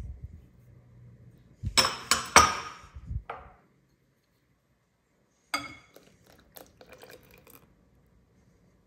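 Kitchenware clinking as oil and milk are added to cake batter in a mixing bowl: a few sharp clinks about two seconds in, then another clink followed by lighter taps a few seconds later.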